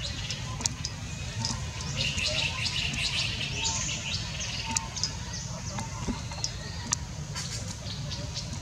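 Repeated high-pitched chirps and short squeaks, thickest about two to four seconds in, over a steady low rumble.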